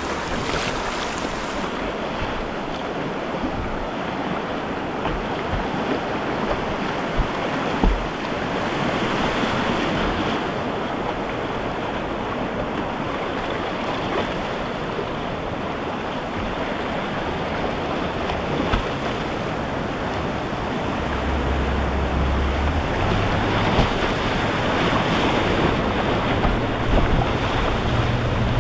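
Fast river water rushing and splashing around a whitewater kayak's bow, a steady wash with a few sharper splashes. Some low rumble of wind on the microphone joins it in the last few seconds.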